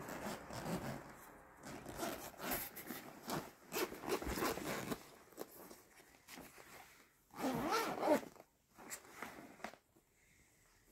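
Zipper of a padded fabric TSRC drone carrying case being pulled open in a series of short, irregular strokes, the loudest about seven to eight seconds in.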